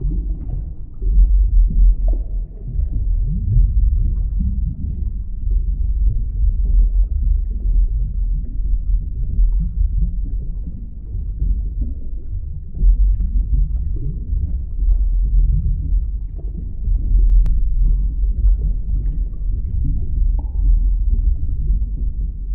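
Underwater ambience: a deep, continuous rumble of water heard from below the surface, swelling and easing in level.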